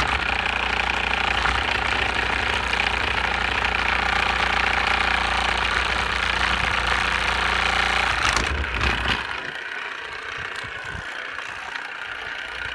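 DC motor with a length of threaded bar fixed to its shaft, running fast straight off a solar panel: a loud, steady mechanical whir over a low hum, the motor vibrating noticeably. About nine seconds in, the low hum drops away and the sound gets quieter.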